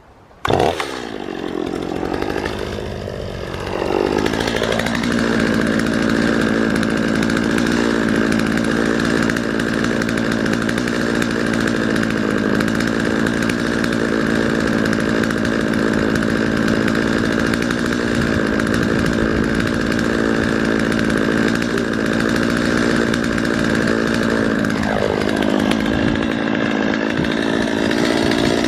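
Chainsaw comes in suddenly just after the start, revs up over a few seconds, then runs steadily at high revs while cutting through a large round hay bale. The revs dip briefly and pick up again near the end.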